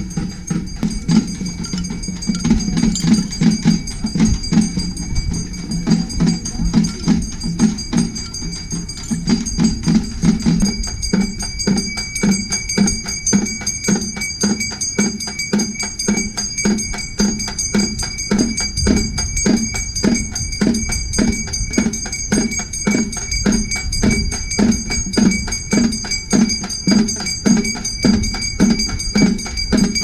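Ritual percussion music: drums beaten in a fast, steady rhythm. The strokes become sharper and more even about ten seconds in.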